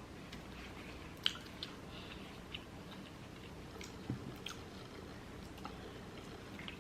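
Close-up eating sounds of a person chewing food: soft wet chewing with scattered small clicks and smacks, the sharpest about a second in and another cluster about four seconds in.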